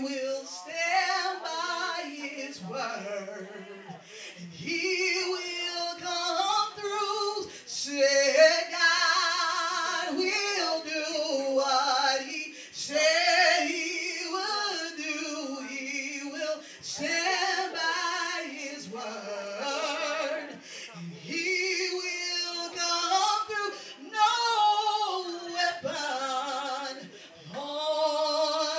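A woman singing solo into a handheld microphone, with long held notes.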